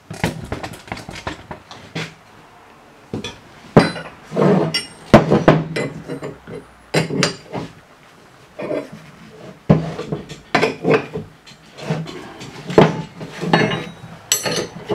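Irregular metal clanks and clinks as a steel C-frame bushing press and hand tools are handled and fitted onto a steel lower control arm on a wooden workbench.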